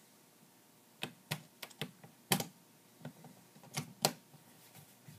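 French horn case latches snapping shut as the case is closed: a run of sharp clicks over about three seconds, two of them louder than the rest.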